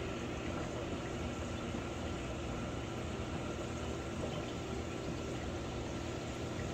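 Reef aquarium running: a steady rush of circulating water with a low, even pump hum underneath.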